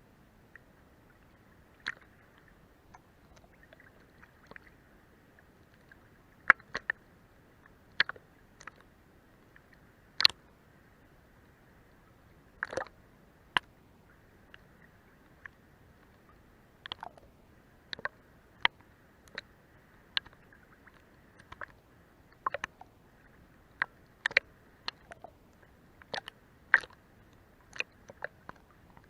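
Sea water lapping and running under a boat's hull: irregular sharp slaps, plops and gurgles over a faint steady hiss.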